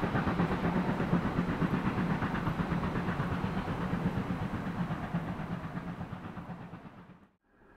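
Steam locomotive working hard, its exhaust beats coming in a fast, even rhythm. The beats gradually fade and then cut off about seven seconds in.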